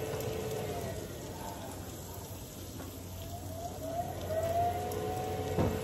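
Weber SmokeFire pellet grill's fan running steadily in its shutdown cycle, with an even hiss over it. A whine rises in pitch about three to four seconds in, and a single metal clank comes near the end.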